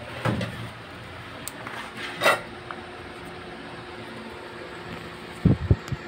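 Small clicks, scrapes and knocks from a car seat belt retractor's plastic cover and spring mechanism being handled and fitted by hand, with a few stronger low knocks near the end.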